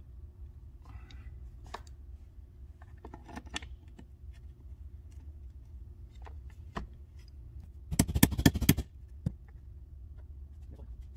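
Cordless impact wrench hammering in one short burst of just under a second, about eight seconds in. It is driving an inch socket tapped onto a fitting on a power steering pump to break the fitting loose. Scattered light clicks and knocks of parts and tools being handled come before and after it.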